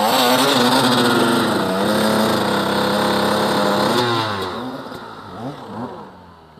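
Enduro dirt bike engine revving hard close by as the bike pulls away, its rear wheel spinning in loose dirt. The engine note holds high and steady for about four seconds, then falls in pitch and fades away.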